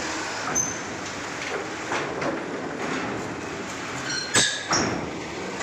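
Truck rolling onto a ferry over its steel loading ramp: a steady rumble and clatter of wheels on the steel plates, with two loud metallic bangs about four seconds in.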